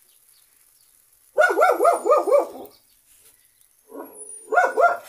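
A dog barking: a quick run of about five barks about a second and a half in, then a few more near the end.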